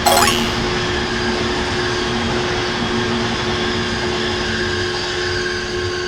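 Train running with a steady rumbling noise and a steady low hum. A short falling whine comes right at the start.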